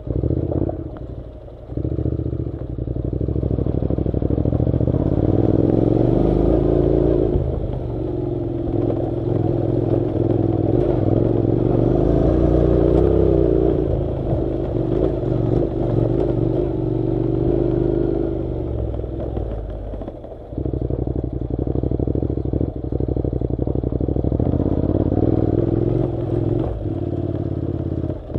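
Honda NC700's parallel-twin engine running under varying throttle on a rough dirt track, its pitch rising and falling, with clatter and rattling from the ride. The engine eases off briefly near the start and again about two-thirds of the way through.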